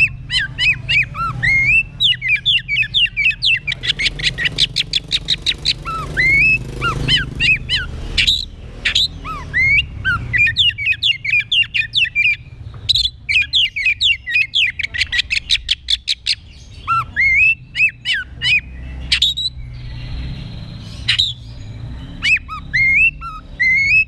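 Oriental magpie-robin (kacer) singing loud, varied song of whistled, sliding notes, twice breaking into a run of fast repeated notes, about eight a second.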